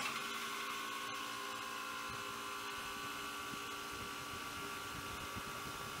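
Running HVAC/refrigeration equipment beside the sight glass: a steady machine hum and whine made of several held tones, cutting in abruptly, with a single click about a second in.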